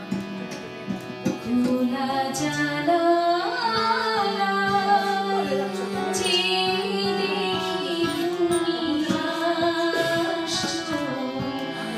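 A woman singing a Bengali song, her melody wavering with vibrato, over a sustained drone and steady percussion accompaniment.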